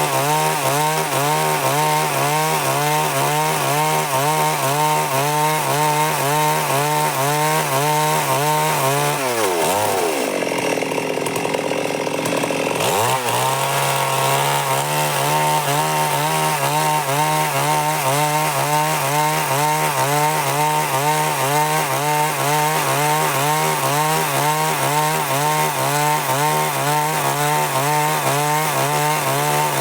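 Stihl MS 382 two-stroke chainsaw running at full throttle while cutting through wood. About ten seconds in, the engine drops to idle, then revs back up about three seconds later and carries on cutting.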